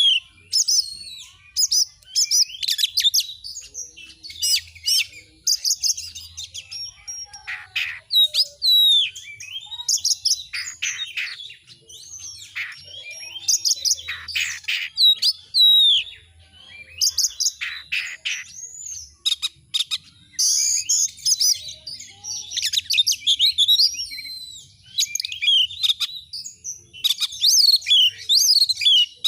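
Oriental magpie-robin (kacer) singing almost without pause: a fast, varied run of sweeping whistles and slurred notes broken by bursts of rapid harsh rattling notes.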